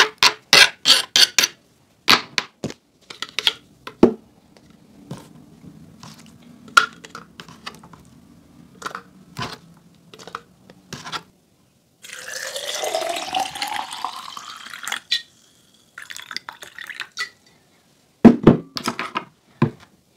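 Knife chopping limes on a plastic cutting board in quick taps, then scattered clicks of lime pieces dropped into a plastic bottle. About twelve seconds in, water pours into the bottle for about three seconds, its pitch rising as the bottle fills. Near the end come several loud knocks of a muddling stick pressing the lime pieces in the bottle.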